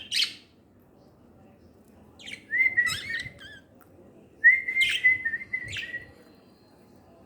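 Small pet birds calling in two bouts, each a held whistled note overlaid with sharp chirps.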